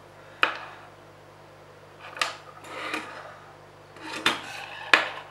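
Handling noise of small hardware on a table: a few sharp clicks and light knocks as a CD-ROM stepper motor with its metal lead-screw rail is set down and a circuit board is picked up, with rubbing in between. The loudest clicks come about half a second in and near the end, over a steady low hum.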